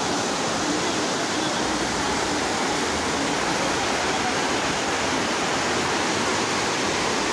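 A shallow mountain river rushing over rocks in white-water rapids: a steady, unbroken rush of water.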